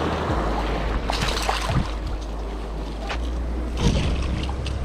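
Ocean surf washing through the shallows, with wind rumbling on the microphone. Several short splashes break through it as a hooked striped bass is brought to hand in the wash.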